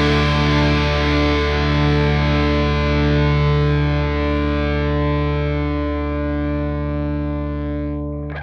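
Rock music ending on a held distorted electric guitar chord that rings out and slowly fades, with a short noise near the end as it cuts off.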